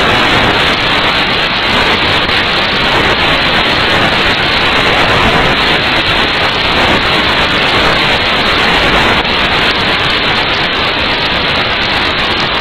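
Steady, loud rushing hiss of water picked up by a camera underwater, with no breathing rhythm or separate bubble bursts.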